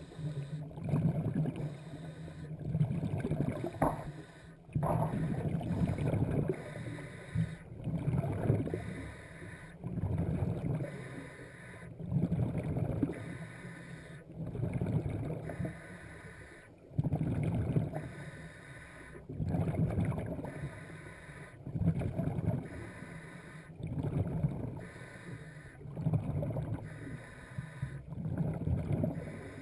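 Scuba diver breathing through a regulator underwater: bursts of exhaled bubbles gurgling about every two seconds, with quieter gaps for each inhale.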